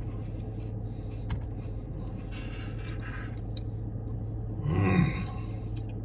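Quiet eating in a car cabin over a steady low hum: soft mouth and spoon noises, then about five seconds in a man's short gasp-like groan.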